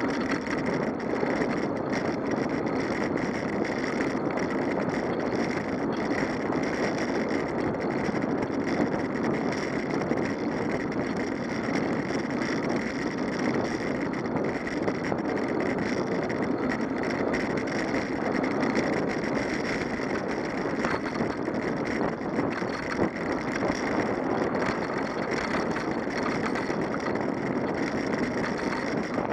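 Steady rushing wind and rolling-tyre noise on a camera mounted on a moving vehicle, even in level with no rise or fall in pitch.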